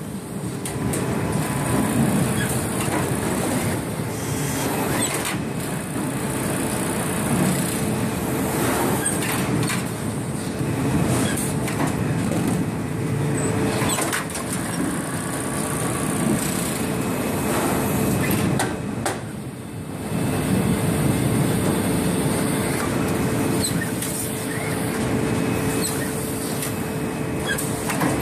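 Fully automatic sack-bagging machine (ERC Baxmatic with ProPak JN) running while it fills jute and net sacks: a steady mechanical noise with a constant hum, broken by sharp clicks and knocks, and briefly quieter about two-thirds of the way through.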